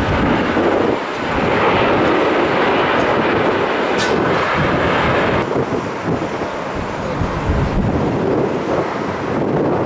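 Jet airliner engine noise: a loud, steady rush with no clear tone, easing slightly after about five seconds.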